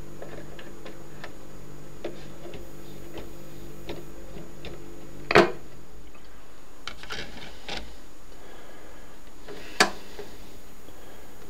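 Fidelity HF42 record player with no music playing: faint scattered ticks and crackle under a low hum, which stops with a sharp click about five seconds in, and a second sharp click near the end.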